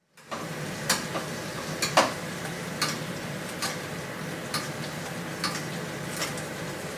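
Fillets frying in a stainless steel skillet, a steady sizzle with a metal spoon clinking against the pan about once a second.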